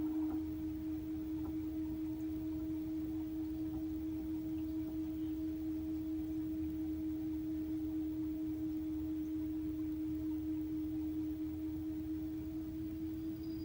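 Toshiba AW-DG14WAG top-loading washing machine in its spin-dry cycle: a steady high-pitched whine over a low rumble. This is the abnormal noise, along with shaking of the machine body, that the owner reports during spinning.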